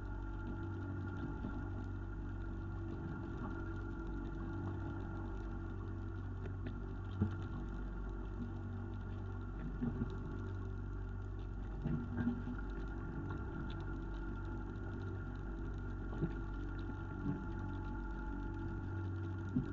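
Fishing boat's engine running steadily at an even pitch, with a few short knocks scattered through.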